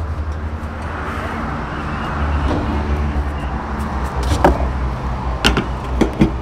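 Petrol dispenser running while fuel flows from the nozzle into a motorcycle's tank: a steady low hum with a hiss that swells and fades. Several sharp clicks come in the second half.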